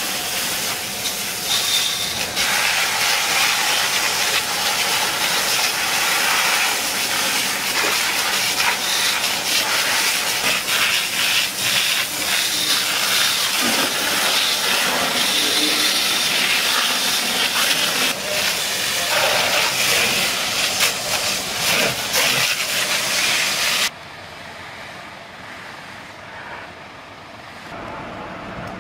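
Loud steady hissing of fire-hose water spray on a burning house, with many sharp crackles and pops through it. About 24 s in it cuts off abruptly to a much quieter outdoor background.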